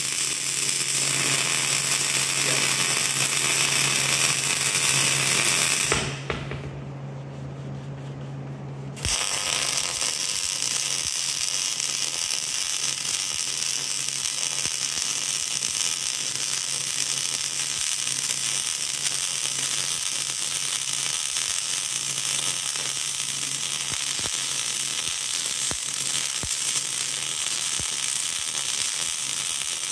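MIG welding arc crackling steadily as a bead is run with a wire-feed gun, tacking the thumb's hydraulic cylinder onto the excavator stick. The arc stops about six seconds in, starts again about three seconds later, and runs on.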